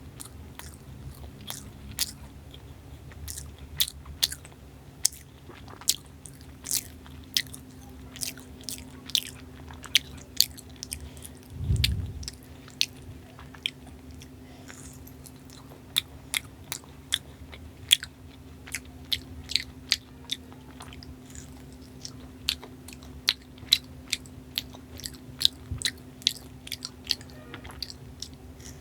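Close-miked eating of Indian sweets: chewing and biting with frequent sharp mouth clicks, and a dull thump about twelve seconds in.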